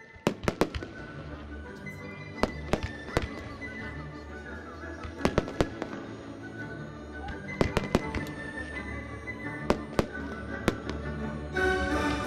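Aerial firework shells bursting in a string of sharp bangs, often two or three in quick succession, over music. Near the end a louder hissing rush sets in.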